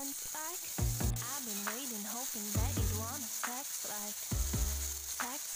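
Chicken thighs sizzling skin side down on a hot grill pan, a steady hiss, under a pop song with singing and a bass beat.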